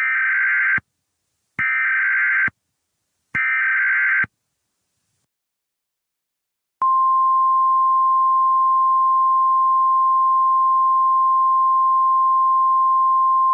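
Emergency Alert System header: three one-second bursts of warbling data tones with short gaps between them. After a pause, a single steady attention tone at one pitch starts about seven seconds in and holds.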